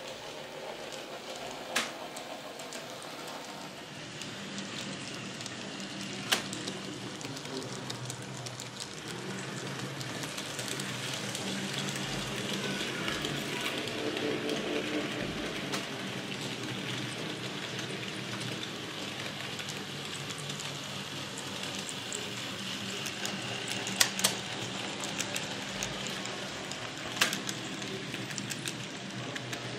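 Model railway trains running on the layout: a steady rolling rattle of wheels on track with a low motor hum, broken by four sharp clicks.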